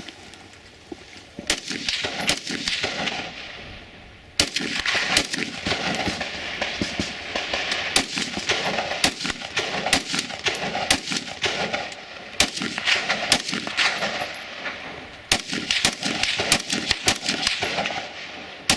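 Rapid rifle fire from a bullpup rifle, in several strings of quick shots with short pauses between them. The shots echo.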